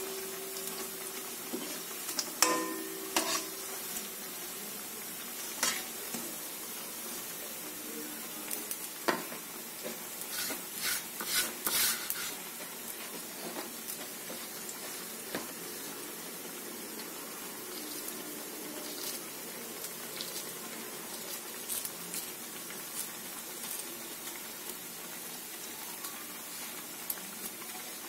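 Prawn fritters in gram-flour batter sizzling steadily in hot oil in a steel wok over a low flame. A spatula knocks and scrapes against the pan now and then, most busily about ten to twelve seconds in.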